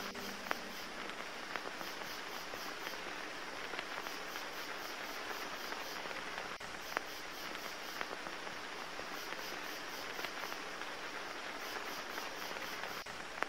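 Steady rain hiss with now and then a single louder drop ticking. Faint high chirping comes in short repeated runs over it.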